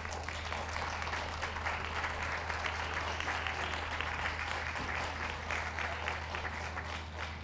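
Ringside audience applauding steadily: a dense patter of many hands clapping that eases off near the end.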